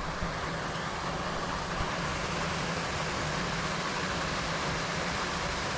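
Steady rush of flowing creek water, with a faint low steady hum underneath.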